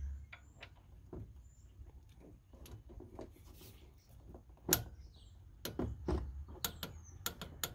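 Clicking of a 3/8-inch-drive torque wrench and socket on the idler pulley bolt as it is tightened to 37 ft-lb: a single sharp click about halfway through, then a quick run of clicks over the next couple of seconds.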